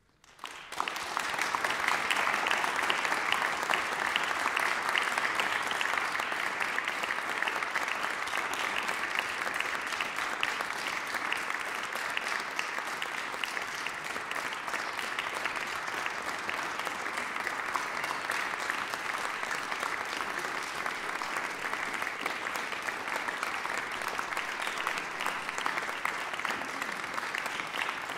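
Audience applauding, many hands clapping, starting suddenly out of silence about half a second in and then holding steady.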